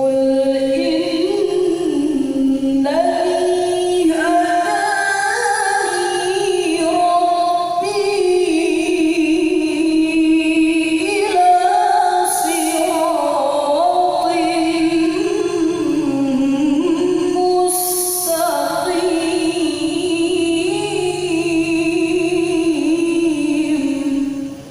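A woman's unaccompanied voice chanting Quran recitation in the melodic tilawah style: one long, continuous, ornamented phrase whose pitch climbs and falls in small steps, stopping just before the end.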